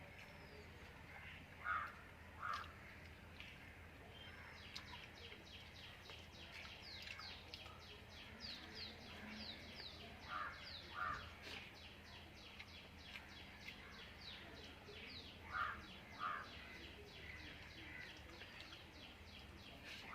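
Birds calling: a louder call given in quick pairs, four times, over a rapid series of high, falling chirps from a smaller bird, about four a second.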